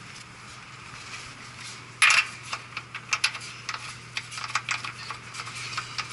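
Small metal tools and parts being handled, clinking and clicking irregularly, with a sharp click about two seconds in. A steady low hum runs underneath.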